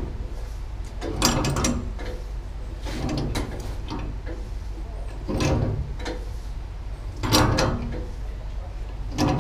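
Large Ridgid Stillson pipe wrench working a threaded sprinkler pipe loose overhead: a rasping metal clatter about every two seconds as the wrench is pulled and its jaws reset and bite on the pipe. A steady low hum runs underneath.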